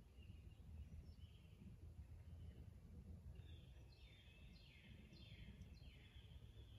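Faint woodland birdsong: about halfway in, a songbird sings a short run of quick descending whistled notes, over a steady faint low rumble.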